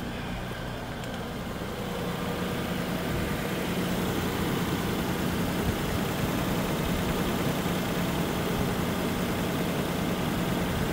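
The 3.3-litre V6 of a 2006 Lexus RX400h hybrid idling steadily at operating temperature, growing a little louder about two seconds in.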